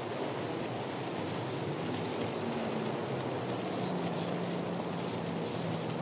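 Steady rushing wind noise. A faint low steady hum joins it about two seconds in.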